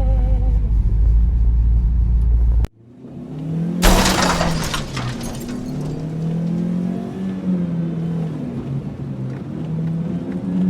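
Car driving through deep snow, a steady low rumble. It cuts off suddenly, then a loud rush of noise comes about four seconds in, followed by a lower hum that shifts in pitch.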